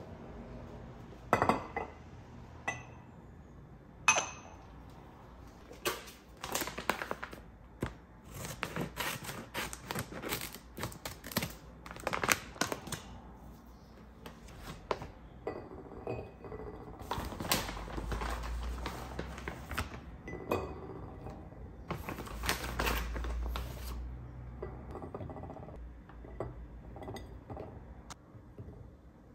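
Kitchen sounds: dishes and cutlery clinking and knocking, with short runs of rapid scraping or stirring strokes and two stretches of rushing noise lasting a few seconds each, about two-thirds of the way through.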